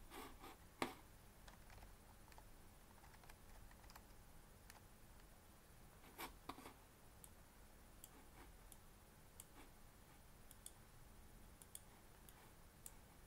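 Near silence broken by faint, scattered clicks from a computer mouse and keyboard, with a louder pair about six seconds in.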